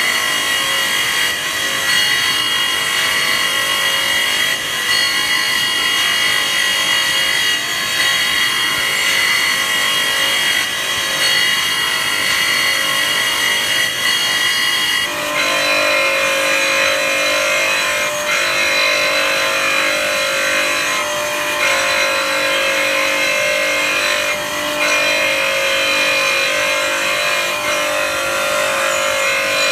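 A ceramic dry-squaring machine's diamond cup wheels grinding the edges of ceramic tiles without cooling water: a loud, steady grinding with high whining tones. About halfway through the tone drops lower and the grinding comes in stretches a few seconds long with short breaks between them.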